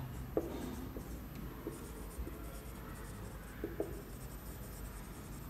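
Marker pen writing on a whiteboard, a few short strokes and taps of the tip as words are written.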